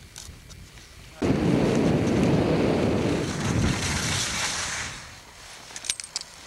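Wind buffeting a camcorder microphone: a loud rumble that starts suddenly about a second in and dies away about four seconds later, followed by a few sharp clicks.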